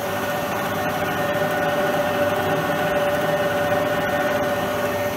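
Schaublin 52 milling machine running with its back gear engaged at 90 rpm: a steady gear whine over the motor's hum.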